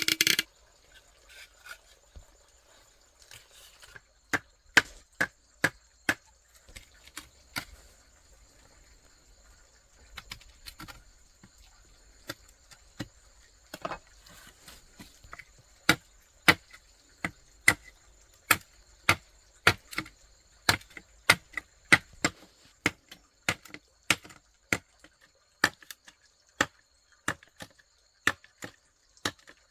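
Repeated sharp chopping knocks, like a blade or tool striking wood, coming irregularly at about one to two a second and more closely together in the second half. Steady high-pitched insect calls run underneath.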